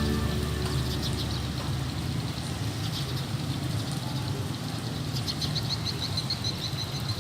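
Outdoor ambience: a steady low rumble and hiss, joined about five seconds in by a fast, even train of high chirps.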